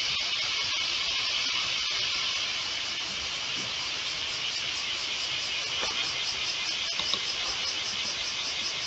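Steady hiss with no speech or music, broken by a few faint clicks.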